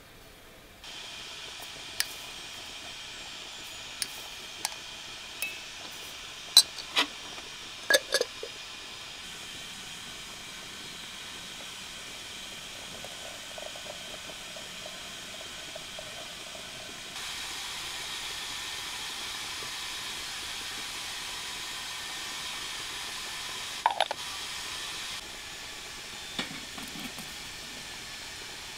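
Steady hiss of a samovar heating water, with a series of sharp spoon clinks against a ceramic jar in the first several seconds. About halfway through, hot water runs from the samovar's tap into a porcelain teapot. Near the end the teapot is set on top of the samovar with a ringing china clink.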